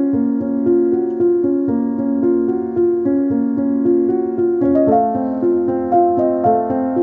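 Background instrumental music of sustained, melodic notes; the chords shift about two-thirds of the way through.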